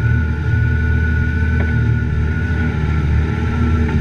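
Side-by-side utility vehicle's engine running steadily under load as it drives through flooded swamp water, a deep drone with a steady high whine above it.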